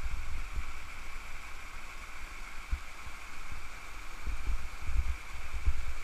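Small waterfall in a rocky stream rushing steadily, with irregular low buffeting on the microphone.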